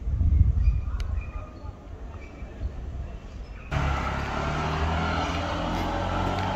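Street ambience: a low rumble at first, then after a sudden cut the steady low hum of a motor vehicle engine running.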